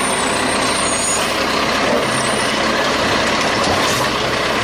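Garbage truck running: a loud, steady hissing rush of air-brake or hydraulic noise over the engine.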